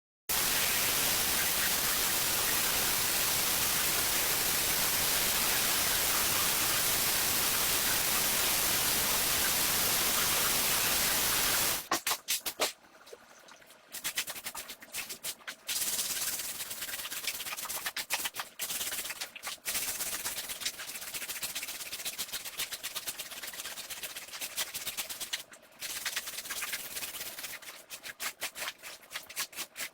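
Rug cleaning on a shag rug: a loud, steady hiss for about twelve seconds, then it stops and gives way to an uneven run of short scrubbing strokes with brief pauses.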